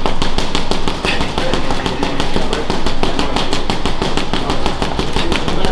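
Boxing gloves hammering a heavy punching bag in a fast, unbroken string of punches, several thuds a second with no pause.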